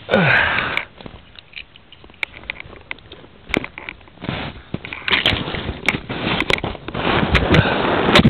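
Rustling and crunching of snow and clothing as a person crawls into a snow-covered shelter, with sharp clicks from handling the camera. A brief falling vocal sound comes right at the start, and the rustling gets busier and louder over the last few seconds.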